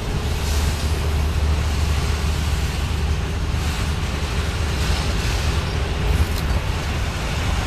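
Freight train led by diesel locomotives rolling past, a steady low engine rumble with rail and wheel noise over it.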